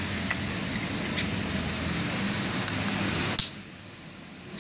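Light metallic clinks of steel engine parts being handled, a toothed gear among them, ending in one sharp metal click a little over three seconds in, over a steady low background noise that drops away after the click.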